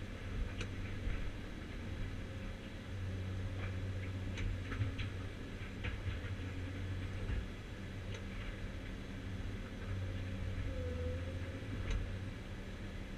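CAT 345C demolition excavator's diesel engine and hydraulics running steadily, heard from inside the closed cab, with a few scattered sharp clicks and knocks.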